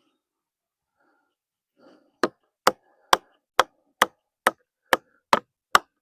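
Rapid, evenly spaced hammer blows on wood, about two a second, nine sharp strikes starting a couple of seconds in, with faint scuffing just before. The wood is green log timber being worked for a timber frame.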